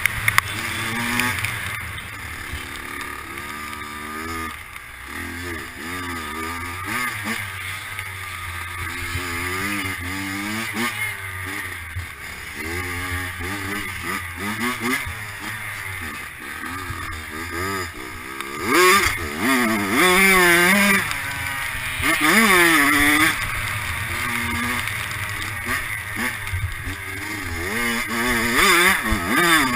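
Dirt bike engine revving hard under load while racing, its pitch climbing and dropping again and again through the gears, with louder full-throttle bursts about two-thirds of the way through and near the end.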